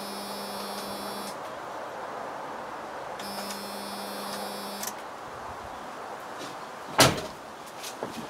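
Electric fuel pump of a Jeep Cherokee XJ buzzing twice, each run lasting about a second and a half, as the ignition is switched on to prime and pressurize the fuel rail without starting the engine. A single sharp knock follows near the end.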